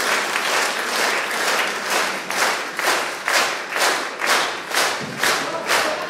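Audience applauding. About two seconds in, the scattered clapping falls into unison rhythmic clapping at roughly two claps a second.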